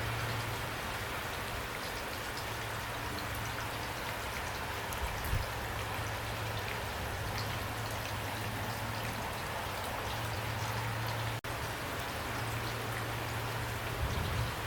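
Steady rain falling, an even hiss with many distinct drops hitting a surface. A split-second gap breaks it about eleven seconds in.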